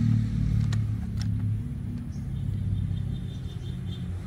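A steady low engine rumble runs throughout. Over it come a few light clicks in the first second and a half as plastic toy-car parts are handled.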